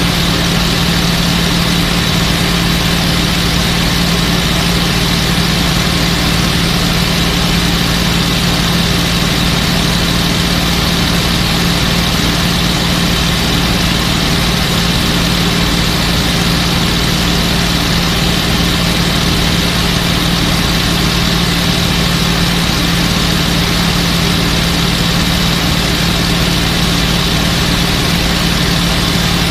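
A P-51 Mustang's Packard Merlin V-12 engine running at steady cruise power, heard from inside the rear cockpit as a constant low drone.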